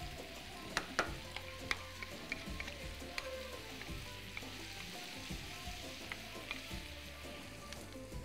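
Shrimp and sliced onions sizzling steadily in a metal pan over a medium gas flame, frying until the shrimp change colour. A metal skimmer and wooden spoon scrape and click against the pan as they are stirred, with the sharpest clicks about a second in.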